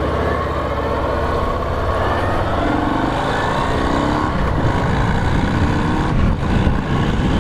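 Harley-Davidson FXDR's Milwaukee-Eight 114 V-twin on its stock exhaust, running under way and accelerating, its pitch rising through the middle stretch.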